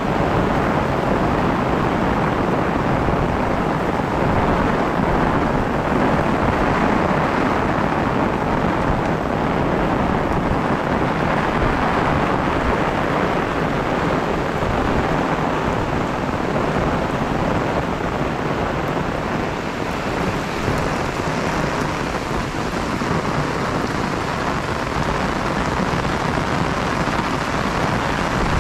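Heavy rain falling in a steady, dense downpour.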